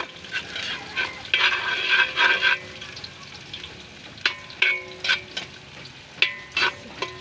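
Metal ladle scraping and clinking against a metal wok, the wok ringing briefly after each knock, while garlic sizzles in hot oil; the scraping is densest about a second and a half in.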